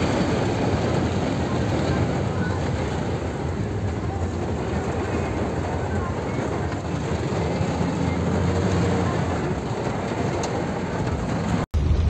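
Steady rumble and wash of a car driving through deep floodwater, heard from inside the cabin. It breaks off sharply for an instant just before the end.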